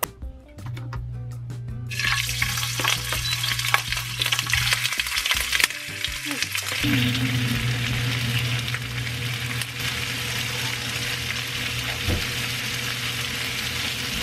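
Beef rib meat sizzling as it fries in hot oil in a frying pan. The sizzle starts suddenly about two seconds in, then carries on steadily.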